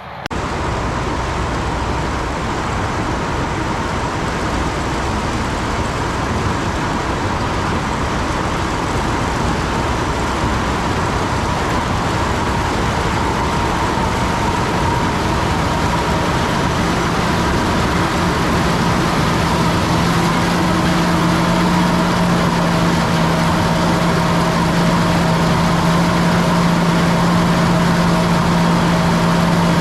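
Farm machinery engines running steadily in a harvest field. A low engine hum comes in about halfway through and grows stronger, getting slightly louder toward the end.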